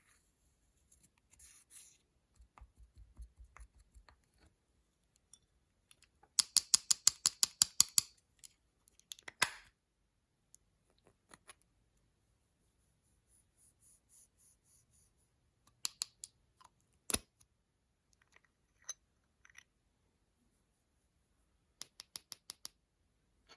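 Runs of quick, sharp plastic clicks from makeup being handled for slime mixing. About a dozen come in fast succession a quarter of the way in, with a short scrape after them, a few single clicks later, and another short run of clicks near the end.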